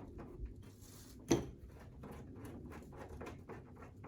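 Hand work freeing the antenna cable from a Chevy S10's front end: a run of light clicks and rustles, with one sharp knock about a second in.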